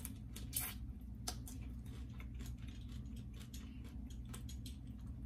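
Irregular soft clicks and crackles as a head-on shrimp is peeled and eaten: shell snapping and wet mouth sounds.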